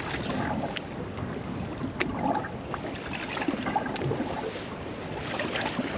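Water slapping and lapping against a small rigid inflatable boat on a choppy sea, with wind on the microphone and a few light clicks of handling.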